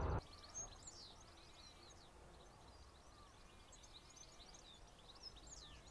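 Woodland birdsong, faint: several small birds chirping and singing in a dense scatter of short high calls, over a faint low hum.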